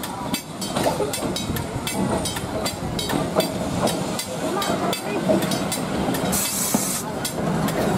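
Chicago streetcar rolling slowly past on its track, its wheels rumbling and clicking over the rail. A short burst of air hiss comes near the end.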